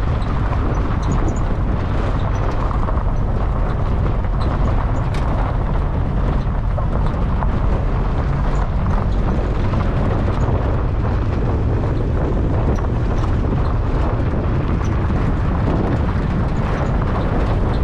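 Small pickup truck driving, its steady road and engine rumble mixed with heavy wind noise on the microphone, with scattered small clicks and rattles.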